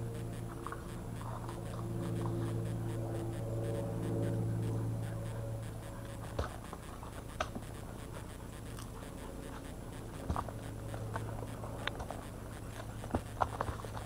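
A horse's hooves stepping on a gravel forest track: a few scattered clops that come more often near the end. A steady low hum is heard first and fades out about five seconds in.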